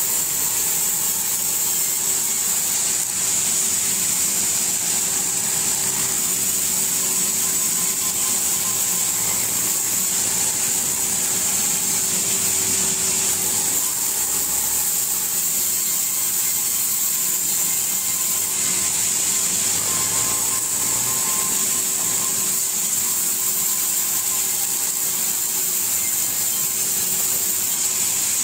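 Sawmill saw running steadily while logs are fed through and cut, a constant motor hum under a high hiss.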